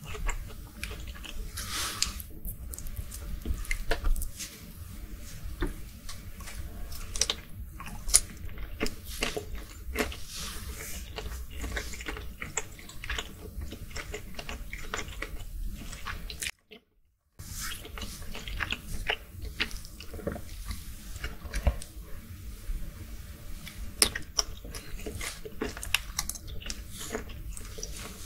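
Close-miked chewing of cooked peeled shrimp: soft wet mouth sounds with many small clicks and smacks. The sound breaks off to silence for under a second about halfway.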